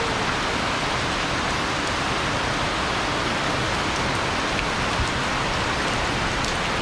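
Heavy rain falling steadily, a dense even patter with a few separate drops ticking.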